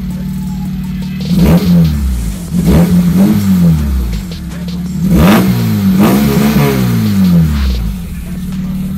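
Daewoo Sens engine running with no muffler, idling and then blipped several times, each rev rising and falling back, the strongest about five seconds in. The open, unsilenced exhaust is what is heard.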